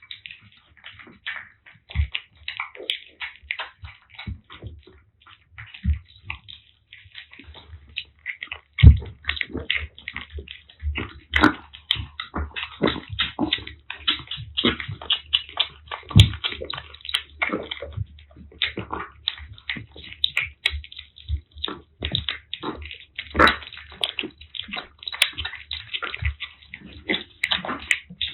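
Kittens eating wet food together from their dishes: a dense run of quick, irregular wet smacking and lapping sounds.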